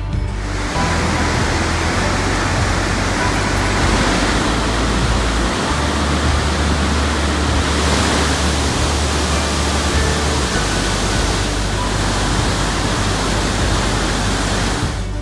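Rhine Falls waterfall: a loud, steady rush of falling water that cuts in abruptly just after the start and stops near the end. Soft background music carries on under it.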